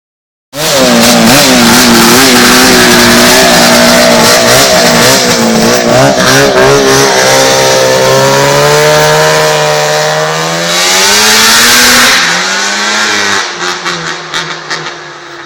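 Snowmobile modified to run on asphalt, its engine running loud and close with a wavering pitch, then rising steadily as it accelerates. About twelve seconds in the engine note drops and fades away.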